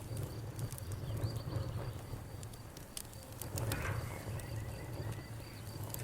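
Campfire crackling, with scattered sharp pops over a low rumble, while an insect trills steadily at a high pitch in the background.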